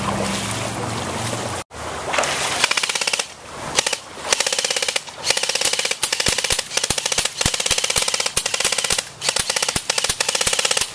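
Background music cuts off abruptly just under two seconds in, then rapid automatic gunfire sound effects follow in repeated bursts with short gaps, dubbed over toy guns.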